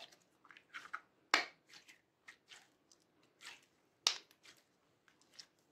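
Glossy orange slime squeezed and stretched between the hands, giving irregular sticky clicks and pops of trapped air. The two loudest pops come about a second and a half and about four seconds in.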